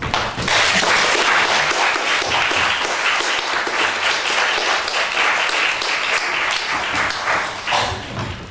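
Audience applauding, starting at once at full strength and dying away near the end.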